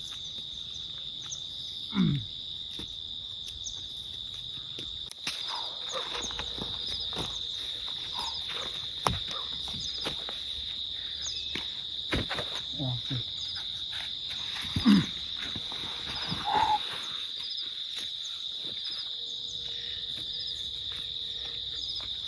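Crickets chirring, a steady high-pitched drone with a faster pulsing chirp just above it, unbroken throughout. A few short low sounds stand out over it, about two seconds in and again around the middle.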